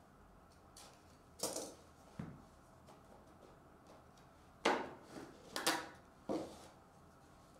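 A stiff cardboard trading-card box being opened by hand: a box cutter slitting its seal, then the lid scraping and sliding off. Around five short scrapes and rubs, the loudest about halfway through.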